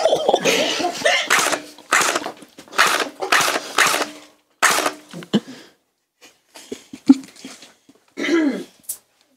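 Splat gun firing gel beads into a person's back in quick sharp shots, about two or three a second for the first four seconds, then a few scattered shots. A brief muffled vocal sound comes near the end.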